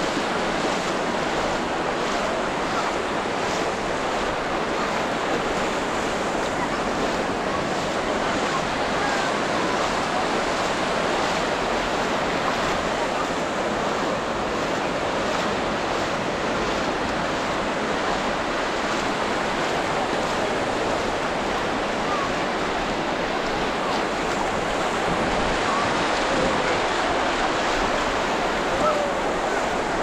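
Ocean surf breaking and washing onto the beach in a steady, continuous rush, with some wind.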